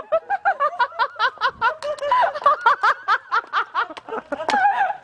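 A person laughing in a quick, high-pitched run of chuckles.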